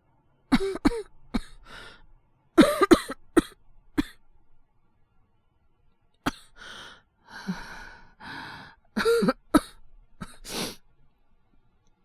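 A young man coughing in fits of two or three coughs, acted as a boy with a cold and fever. The coughs come in two groups about a second in and around three seconds, then, after a short pause, heavy breathing and two more coughs near the end.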